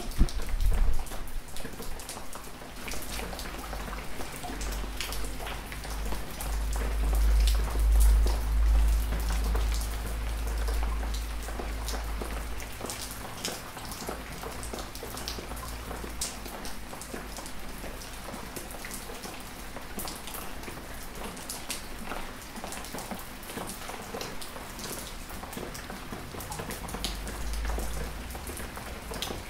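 Gentle rain falling on a small backyard: a steady hiss of rain with many separate drops tapping. A low rumble swells and fades in the first half.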